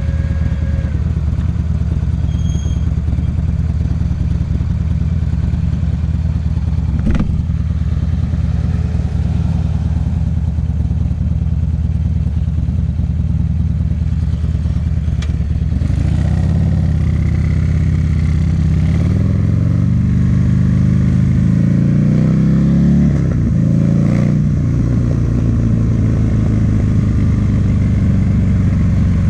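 2009 Buell XB12Ss motorcycle's V-twin running through a Jardine aftermarket exhaust while being ridden. It holds a steady drone for about the first half. From about halfway the engine pitch rises as it accelerates, drops sharply about three-quarters through as it changes gear, then climbs again.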